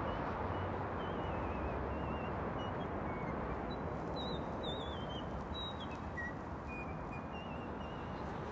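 Outdoor city ambience: a steady rush of distant city noise, with small birds chirping now and then in short, wavering high notes.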